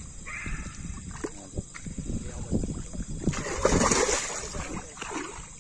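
Water splashing and sloshing, with a louder burst of splashing about three and a half seconds in.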